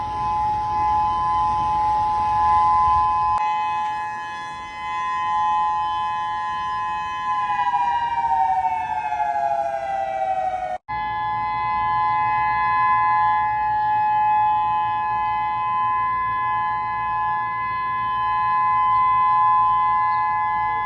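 Civil-defence tsunami warning siren sounding a steady two-note wail. About seven seconds in, its pitch slides down for a few seconds, then it breaks off abruptly and the steady wail resumes.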